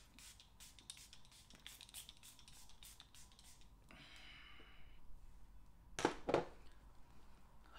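Faint scratching and clicking from handling makeup products and brushes. A soft hiss lasts about a second around four seconds in, and two louder sharp sounds come close together about six seconds in.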